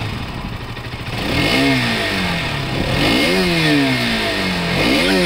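A motor engine revving up and down, its pitch falling and rising again several times.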